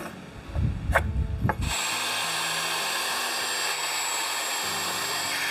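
A few knocks and clicks, then from just under two seconds in a cordless drill runs steadily, boring a pilot hole into a pine 2x4.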